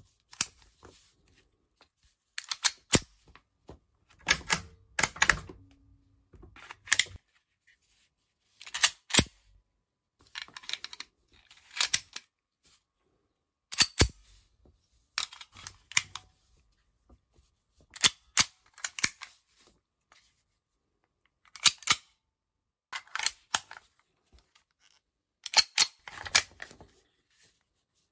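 Sharp metallic clicks and clacks of pistols being handled and reloaded, magazines seated and slides or bolts worked: a Ruger Mark IV .22 LR pistol in the first half, then a Walther PPK .32 ACP. The sounds come in about a dozen short clusters with quiet pauses between them.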